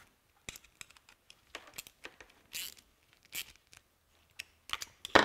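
Scattered light metal clicks and a couple of short scrapes as a small wrench is turned on the nylock nut of a fish-finder transducer's stainless steel mounting bracket, snugging it just enough that the transducer can still pivot.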